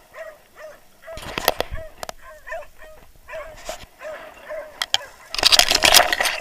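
Hunting dogs barking in a steady run of short yelps, about two or three a second. Loud rustling of dry bracken being pushed through breaks in about a second in and again, louder, near the end.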